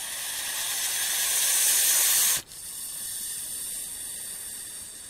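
Gopher snake hissing in defence, a warning to be left alone: a long, really loud hiss that builds and breaks off sharply a little after two seconds in, then a second, quieter hiss. The loudness comes from an extra keel in front of the snake's glottis.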